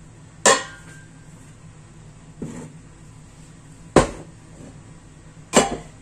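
Kitchen clatter: a stainless steel pot and an olive oil bottle being set down on a glass-top hob and counter, four sharp knocks about a second and a half apart, the second one softer.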